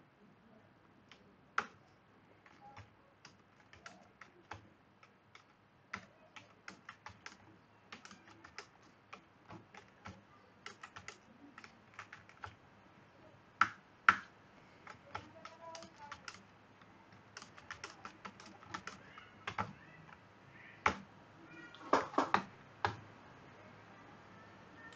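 Typing on a computer keyboard: irregular key clicks in short runs with pauses between, and a quicker, louder flurry of keystrokes near the end.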